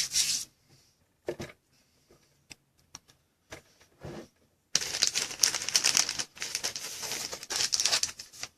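Hands handling trading-card supplies: scattered light clicks and taps, then from about halfway in a dense, rapid rustling and crinkling of packaging.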